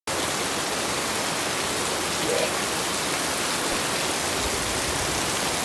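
Heavy rain pouring steadily onto standing floodwater and the ground, a dense even hiss that stays at one level throughout.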